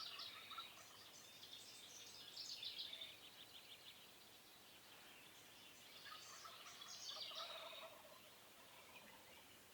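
Faint, distant wild turkey gobbles, three rattling calls a few seconds apart.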